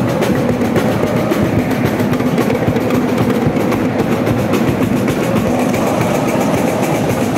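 A large student cheering section chanting and singing together over a drum section beating a quick, steady rhythm with snares and cymbals.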